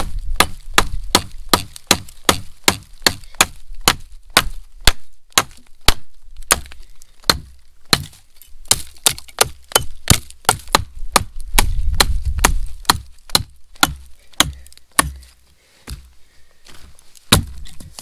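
Wood being chopped: dozens of sharp strikes, two or three a second, then a short pause and one last loud strike near the end.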